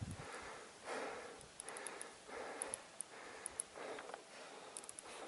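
A person breathing hard close to the microphone: rapid, noisy breaths in and out, with a few faint small clicks.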